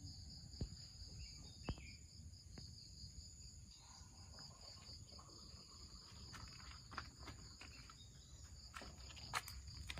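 Faint, steady high-pitched chirring of insects in a garden, with a few sharp clicks scattered through it, the loudest near the end.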